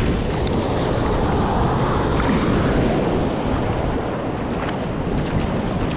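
Steady wind noise on the microphone over the continuous wash of breaking surf.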